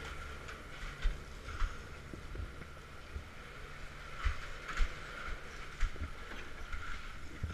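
Leitner chairlift running through its station: a steady whine over a low rumble, with irregular knocks and clunks as the chair travels through the station machinery.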